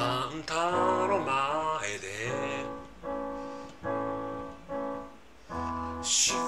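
Slow ballad: a singer's voice slides through a sustained phrase over piano chords. From about three seconds in, the piano plays alone, a string of held chords that each fade. The voice comes back near the end.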